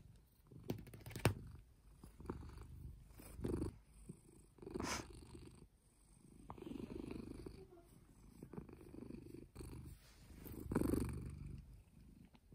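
A cat purring right at the microphone while being stroked, in slow rumbling waves that swell and fade every second or two. A few sharp brushing knocks, the loudest near 1 s, 5 s and 11 s, come as the cat's fur rubs against the phone.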